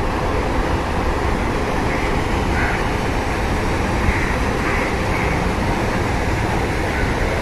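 Steady, fairly loud outdoor background rumble, with a few faint short calls at intervals.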